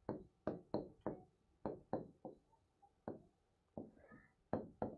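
A pen or stylus tapping against the glass of an interactive touchscreen board while a word is hand-written: about a dozen short, sharp knocks at an uneven pace.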